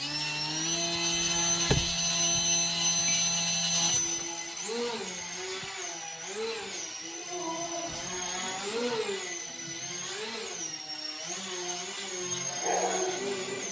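Small electric RC plane's motor and propeller whining. It holds one steady pitch for the first few seconds, then rises and falls again and again as the throttle is worked in flight.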